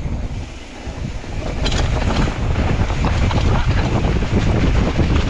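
Wind buffeting the microphone of a mountain bike on a fast downhill trail ride, with irregular rattles and knocks from the bike over rough ground; the noise swells about a second and a half in.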